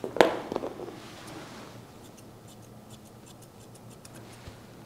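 Utsumi grooming shears snipping a Shih Tzu puppy's coat. A sharp click comes just after the start, then a run of quick, faint snips from about halfway through.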